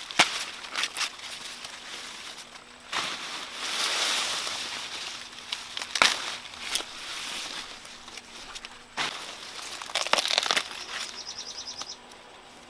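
Corn leaves and husks rustling and crackling as ears of sticky corn are picked by hand, with a sharp snap now and then. A short run of high chirps sounds near the end.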